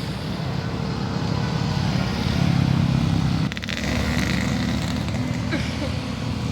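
Tour bus engine running as it drives past, a low rumble that swells over the first three seconds, drops sharply for a moment about halfway, then picks up again.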